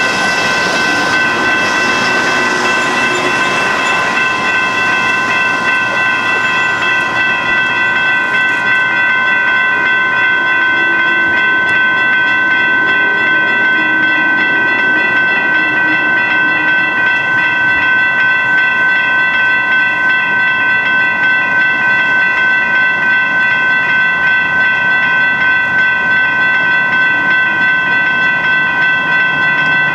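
Railroad crossing warning bell ringing continuously, a fast, even clanging ring that holds the same pitch throughout.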